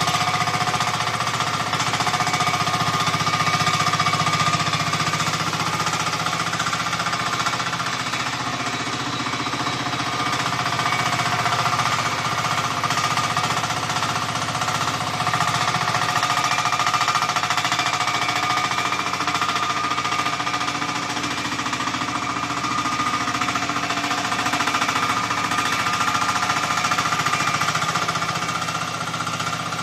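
Mini excavator running a hydraulic breaker attachment, hammering rapidly and continuously over its running engine and hydraulics.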